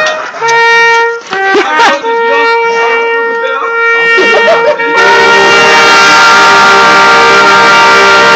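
Brass band playing military tattoo music. Long notes are held in unison, then about five seconds in the full band comes in with a loud chord held for several seconds.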